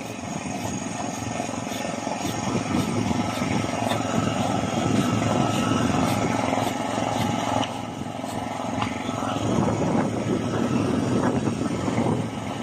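A boat engine running steadily, with a bolo knife hacking and shaving at a wooden mast in quick, repeated strokes. The engine noise and the strokes dip briefly near the middle.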